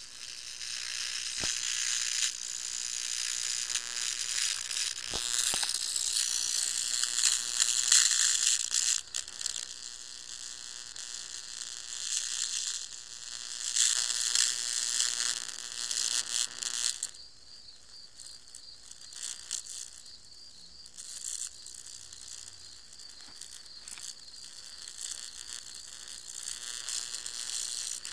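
Electric bug zapper's high-voltage grid arcing through a Chinese mantis caught across the wires: a loud, rough hiss that rises and falls. About seventeen seconds in it drops to a fainter, irregular crackle.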